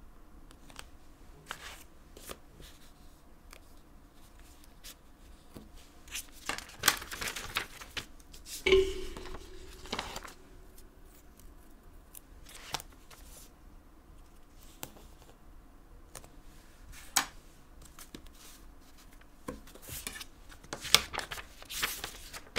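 Paper and washi tape being handled on a notebook: tape pressed and smoothed along the page, stickers peeled, and a page turned near the end, heard as soft rustles and small scattered clicks, with a few louder rustles in the middle.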